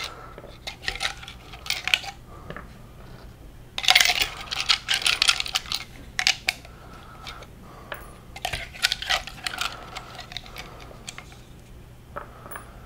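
Small steel gears and pins from a Traxxas X-Maxx centre differential clinking against a clear tub and against each other as they are picked out of solvent and set down on a work mat, in irregular clusters of light metallic clicks.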